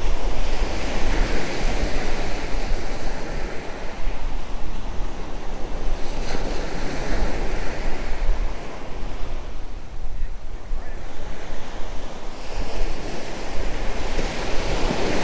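Ocean surf breaking and washing up a sandy beach, swelling and easing as each wave comes in, with wind buffeting the microphone in a deep rumble.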